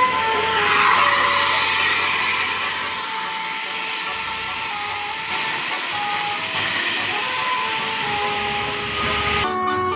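A bus passing close with a loud rushing noise, loudest about a second in, while its basuri multi-tone horn plays a tune in short stepped notes. The sound cuts off abruptly near the end.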